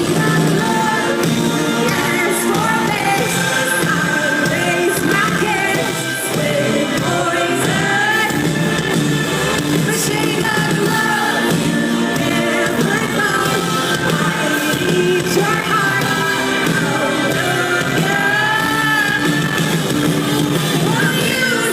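A live rock-pop song with a female lead vocal singing over a full band, heard through the room as an audience recording, with little deep bass.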